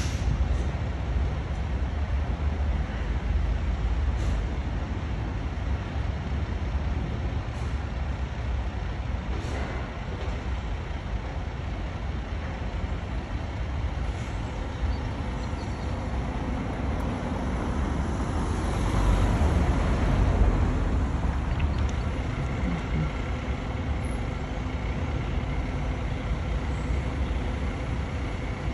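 Fire engine's diesel engine running as the appliance pulls forward out of its bay, a steady low rumble that grows louder about two-thirds of the way through.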